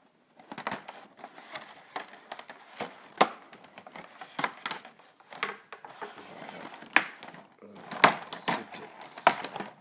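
Clear plastic blister packaging being handled, a run of crackles and clicks with sharper knocks about three seconds in and again about eight seconds in.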